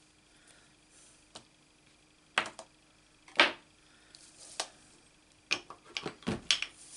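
Light taps, clicks and brief paper rustles of hands handling card stock and stamping supplies on a craft mat, one louder rustling tap about three and a half seconds in and a quick cluster of taps near the end.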